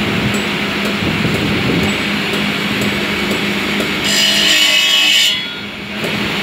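Marble cutting saw running with a steady machine hum. About four seconds in, the saw blade gives a shrill, high-pitched squeal for just over a second as it grinds against the marble slab, then the noise briefly drops before the steady running resumes.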